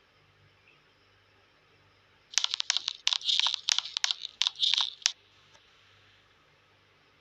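A quick run of sharp clicks and crackly, rustling handling noise lasting about three seconds, over a faint low hum.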